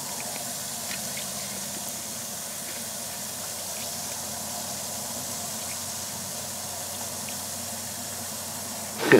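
Rock fizzing in dilute muriatic acid: a steady soft hiss of bubbles with a few faint scattered pops, the sign of calcite in the rock dissolving. A short louder rustle comes near the end.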